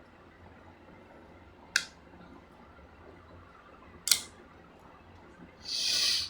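Two sharp clicks about two seconds apart as a laptop RAM stick is pushed into its slot and snaps into the retaining clips, then a brief, louder rustle of handling near the end.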